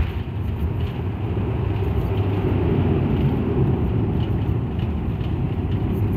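Steady low rumble inside the cabin of a high-wing turboprop airliner rolling along a dirt runway just after landing: the propeller engines running and the landing-gear wheels on the rough surface.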